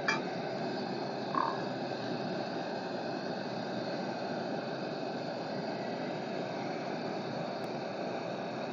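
Steady rushing hiss of a lit stove burner heating a pan of oil, with a light clink right at the start and another short clink about a second and a half in.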